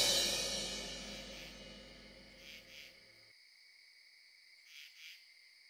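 Background music ending on a shimmering cymbal swell that fades away over about three seconds. Then come faint cricket chirps in pairs.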